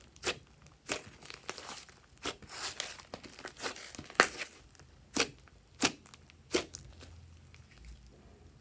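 Glossy slime being squeezed and stretched by hand, giving a series of sharp popping clicks from trapped air with crinkly squelching in between. The clicks stop about a second before the end.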